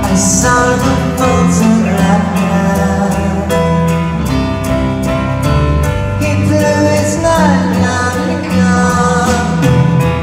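Rock band playing live through a concert sound system, heard from the audience: guitars, piano and drums with a voice singing over a steady beat.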